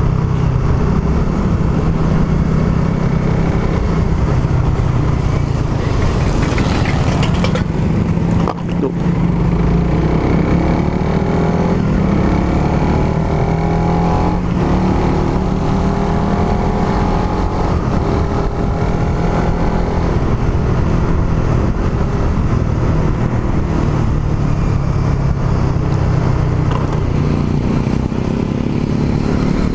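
Suzuki Raider R150 Fi's single-cylinder four-stroke engine heard onboard while riding in slow traffic, its revs rising and falling with throttle and gear changes. A brief drop in engine sound comes about eight seconds in. The new engine is in its break-in period, ridden gently below 6,000 rpm.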